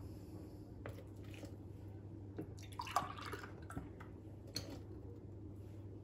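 Milk being poured into a bowl of cake batter: faint trickling and dripping, with a few light knocks.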